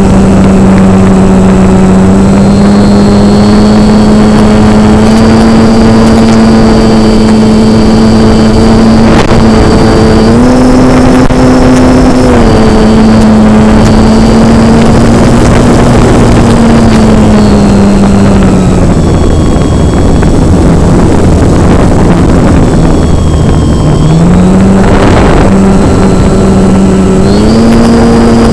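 Model airplane's motor and propeller droning in flight at a steady pitch over a constant rushing noise. The pitch steps up briefly about ten seconds in, sinks lower around nineteen seconds, then climbs back in two steps near the end.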